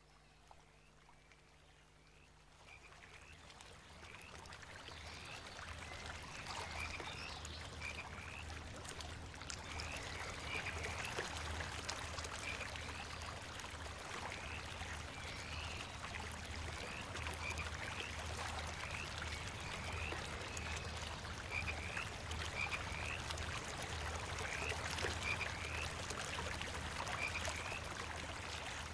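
Recorded wetland ambience of frogs calling, many short chirping calls over a bed of running water, fading in over the first several seconds and then holding steady.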